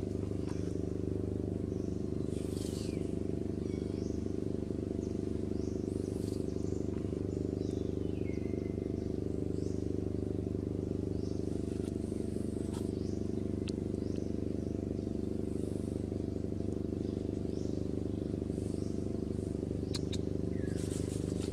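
A steady low hum made of many even tones, unchanging in pitch and level, with a few faint short high chirps or rustles over it.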